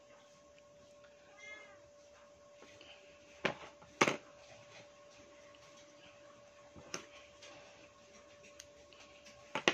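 A few sharp clicks and knocks from hands working a sneaker and its nylon stitching thread, the loudest pair about three and a half and four seconds in, over a faint steady hum. About a second and a half in, a short faint call rises and falls in pitch.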